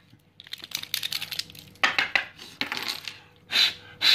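Small hard plastic parts and a hand tool being handled on a wooden tabletop, in a quick run of clicks and clatters, with a short hissy burst near the end.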